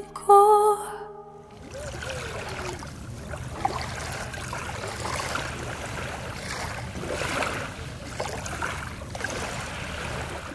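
A held musical note ends about a second and a half in. Then small waves lap and wash on a shore, a steady noisy wash that swells and eases gently.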